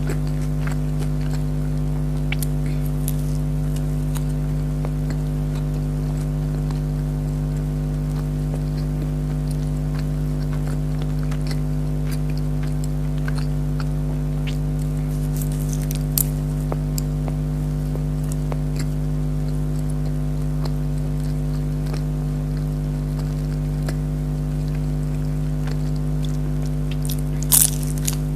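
Close-up eating sounds of fries and a chicken roll: scattered crunchy bites and chewing clicks, with sharper crunches about halfway and near the end. A steady electrical hum runs underneath, louder than the eating.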